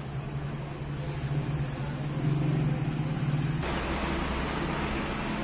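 Steady low mechanical hum, which gives way about three and a half seconds in to a louder, broader rushing noise over a slightly higher steady hum.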